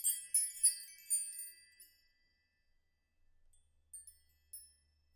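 A bright, high chime sting: several tinkling bell-like notes in quick succession that ring out and fade within about two seconds, followed by a few faint single tinkles near the end.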